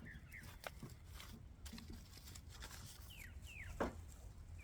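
Small birds chirping in short, falling notes, with light clicks of packaging being handled and one sharper click a little before the end.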